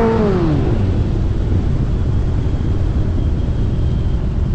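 A motor's pitched whine drops in pitch and dies away within the first second, leaving a steady low rumble.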